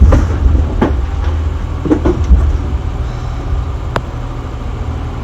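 Steady low drone of a motor yacht's engines underway, with several thuds and knocks as the boat pounds through rough chop, and a sharp click about four seconds in.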